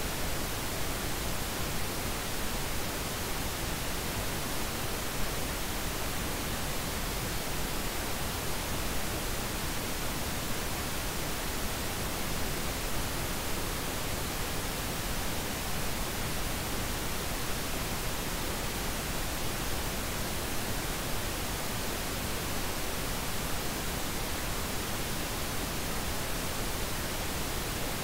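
Steady synthetic noise, an even hiss spread across all pitches, with no tones, rhythm or changes.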